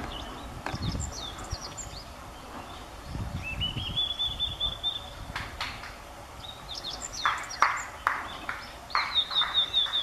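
Blue-and-white flycatcher singing: several phrases of quick high clear notes, then a run of short harsh notes about two a second in the latter part.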